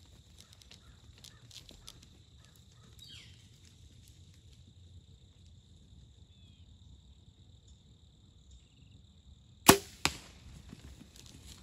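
A bow shot: a sharp, loud crack of the bowstring release about three-quarters of the way in, followed a moment later by a quieter smack of the arrow striking the deer. A steady high hum runs underneath.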